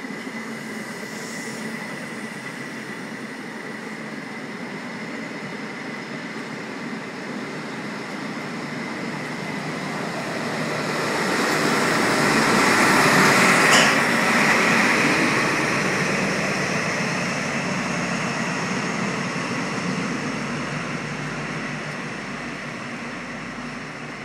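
High Speed Train departing: a Class 43 power car's Paxman VP185 diesel engine under power and the wheels on the rails, with a steady high whine. The sound builds to a peak about halfway through as the rear power car passes, then fades as the train pulls away.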